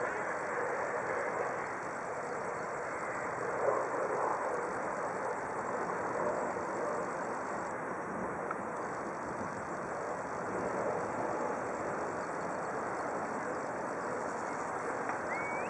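Steady, even hum of distant engines, with no clear rhythm or rise and fall.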